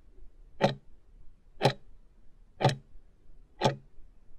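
Countdown timer tick sound effect: a sharp clock-like tick once a second, four times, counting off the final seconds of the countdown.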